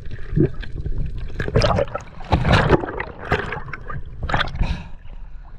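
Gurgling, bubbling water heard through an underwater camera, coming and going unevenly.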